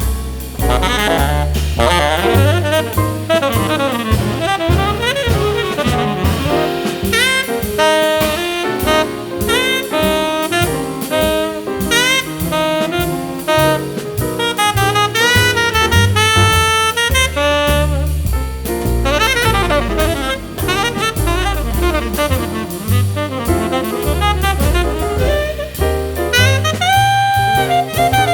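Background jazz music with saxophone, a walking bass and drums.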